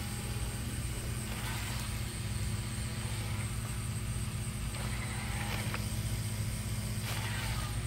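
LawnMaster OcuMow robot lawn mower's electric motors humming steadily, with a faint high whine, as it keeps trying to turn while stuck in a rut on a slope. Soft rustles come every couple of seconds.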